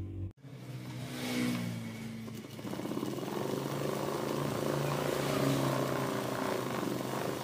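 Typical industrial lockstitch sewing machine stitching cloth at a steady speed, after a brief cut-out near the start.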